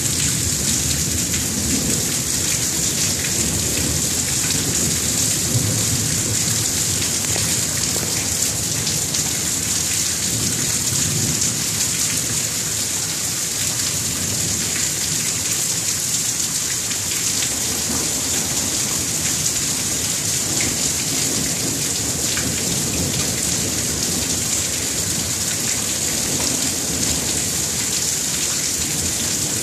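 Steady heavy rain during a thunderstorm, a continuous even hiss, with a low rumble of thunder rising and falling beneath it.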